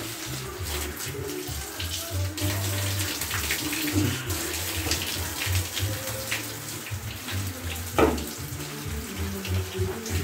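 Water running from a bathtub faucet and splashing as a soapy cat is rinsed in the tub, with a sharp knock or splash about eight seconds in.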